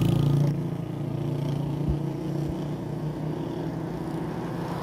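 A motor vehicle engine running steadily, loud at first and dropping to a lower level about half a second in.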